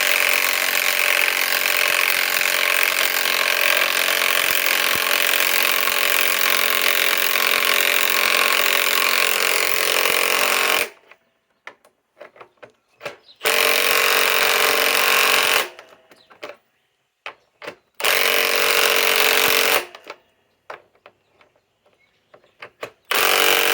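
Milwaukee M18 Fuel Gen 2 mid-torque impact wrench hammering as it drives a 5-inch lag screw into wood. It runs in one long stretch of about eleven seconds, then in three short bursts with quiet pauses between, the last starting near the end.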